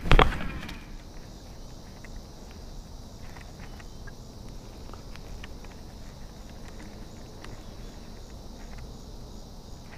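A cast with a baitcasting rod: a sharp burst at the start as the rod swings and the reel pays out line, fading within about a second. After that, a low steady outdoor background with a constant high insect buzz and occasional faint small clicks.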